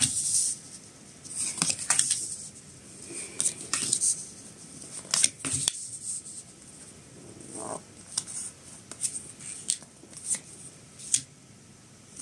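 Tarot cards being dealt and laid down one at a time on a cloth-covered table: irregular short snaps and rustles of card on card.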